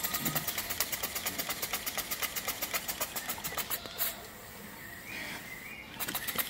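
Cotswold Heritage Perseus model steam engine running on steam: a rapid, even ticking beat of about ten strokes a second that stops about four seconds in. Near the end the flywheel is spun by hand and the beat starts up again briefly, with the boiler all but out of steam.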